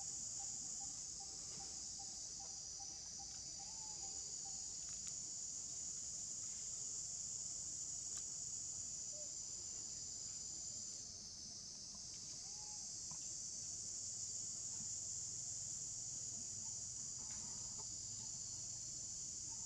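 Steady, high-pitched chorus of insects. For the first few seconds a bird repeats a short single note about two or three times a second.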